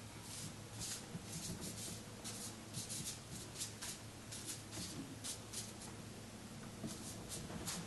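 Chinese ink brush stroking and dabbing on unsized Xuan rice paper: a run of short, soft swishes, a few each second, over a low steady hum.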